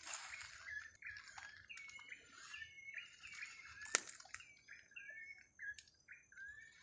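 Forest birds calling: a steady run of short chirped notes, each a quick sliding whistle, about two or three a second. One sharp snap about four seconds in.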